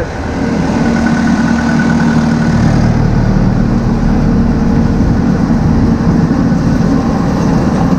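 Farm machinery running steadily at idle, with a low rumble that builds a little about two and a half seconds in, and wind buffeting the microphone.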